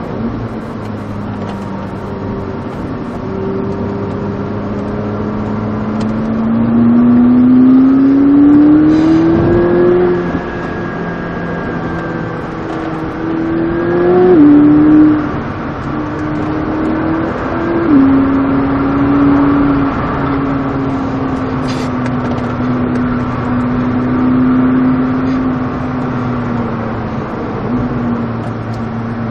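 McLaren sports car engine heard from inside the cabin while lapping a race track. The revs climb for a few seconds, then drop sharply in pitch with quick upshifts about halfway through. The engine then holds a fairly steady note and eases off near the end.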